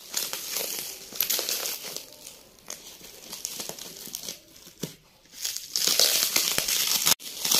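Clear plastic wrap around a cardboard parcel crinkling as hands rub and tug at it, in irregular bursts that get louder in the last couple of seconds.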